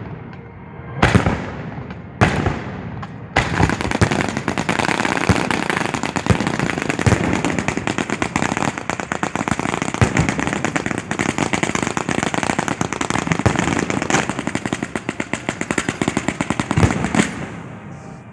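Professional display fireworks heard up close: three single sharp booms, each with a trailing rumble, then about three seconds in a dense, rapid crackle of many reports like a machine gun that runs on for over ten seconds before dying down near the end.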